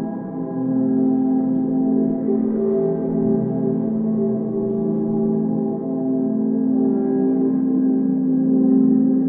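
Modular synthesizer drone through a loudspeaker: a dense, steady cluster of many held tones, with the strongest tones slowly swelling and fading against one another.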